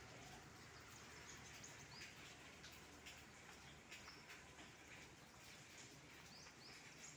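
Faint, irregular ticking of raindrops dripping, with a few short, high bird chirps.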